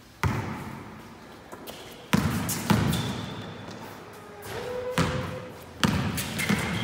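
A basketball bouncing on an indoor court floor: about four hard, unevenly spaced bounces, each echoing in the hall, with a couple of short squeaks between them.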